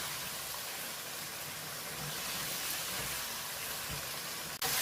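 Chicken curry sizzling steadily in hot oil in a pan on high heat. The hiss drops out for an instant near the end and comes back louder.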